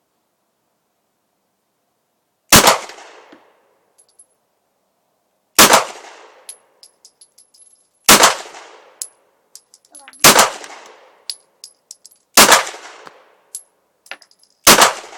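Glock 18 9mm pistol fired six times as single shots, two to three seconds apart, each shot followed by a short ringing tail. Light metallic clinks sound between the shots.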